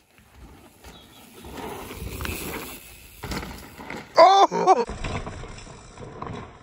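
Mountain bike tyres rolling and skidding over a dirt pump track, a rough rumble that grows as the rider comes closer. About four seconds in, a person gives one short, loud shout.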